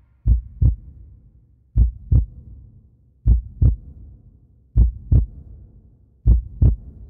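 Heartbeat effect in an electronic trap track: five pairs of low lub-dub thumps, one pair about every one and a half seconds, over a faint low hum.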